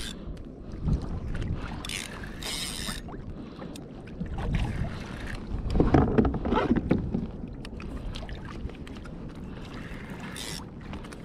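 Wind buffeting the microphone over water lapping and sloshing against a kayak hull, with a few short hisses and a louder rush of water about halfway through.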